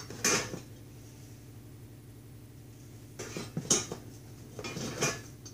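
Metal tools and parts clinking and clattering on a workbench in three short bursts: one about a quarter second in, then two more between about three and five seconds in. A faint steady hum runs underneath.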